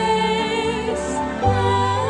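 Slow devotional background music: a singing voice in long held notes over soft accompaniment.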